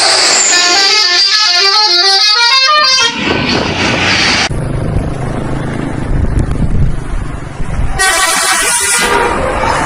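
Indonesian bus 'telolet' multi-tone horn playing its quick melody of several notes stepping up and down, for about two and a half seconds. It sounds again briefly about eight seconds in, with a low engine rumble between.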